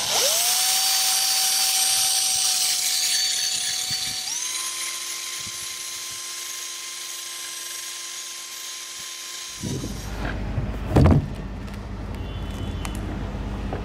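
Cordless drill spinning a wire wheel brush against a metal propeller hub, scrubbing it clean before it is painted: a steady motor whine under a loud scratchy hiss. About four seconds in the motor's pitch steps up and the scratching eases, and the drill stops about ten seconds in, followed by a knock.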